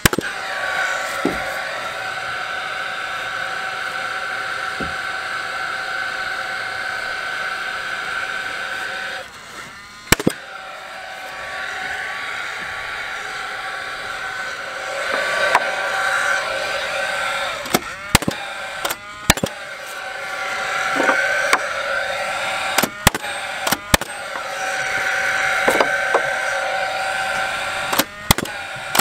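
Paslode cordless gas framing nailer driving 3-inch ring-shank nails through a rim joist into treated 2x6 floor joists: about ten sharp shots, several in quick pairs and most in the second half. Between the shots a steady whine, the nailer's fan, cuts out for a few seconds in the middle.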